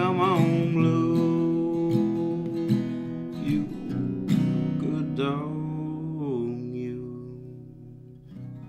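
Acoustic guitar strumming the closing chords of a folk song, with a drawn-out wordless sung note over it; the last chords are left to ring and die away.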